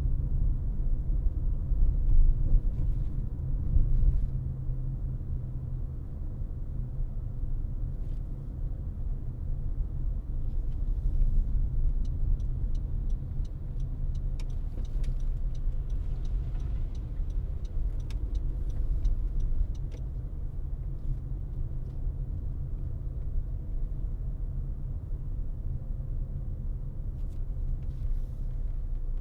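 A car driving, with a steady low road and engine rumble. A run of faint, evenly spaced ticks comes in around the middle.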